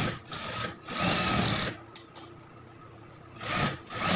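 Industrial lockstitch sewing machine stitching a seam in short start-stop runs, about five of them, each under a second long, with a pause of about a second just past the middle.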